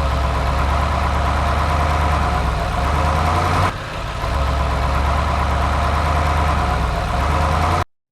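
Excavator engine idling steadily, with a brief drop in level about three and a half seconds in; it cuts off suddenly near the end.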